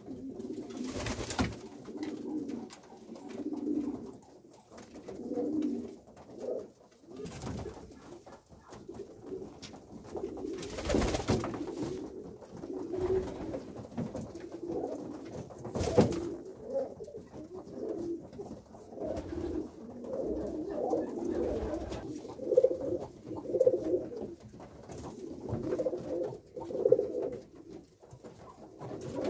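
Male Polish Owl pigeons cooing over and over in a loft, their low rolling calls overlapping. A few short, sharp noises break in, the loudest about halfway through.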